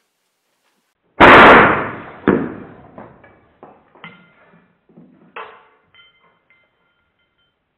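A .177 PCP air rifle shot: one loud sharp report about a second in with a long fading tail, followed about a second later by a second, weaker sharp hit, then several lighter clicks and a faint ringing.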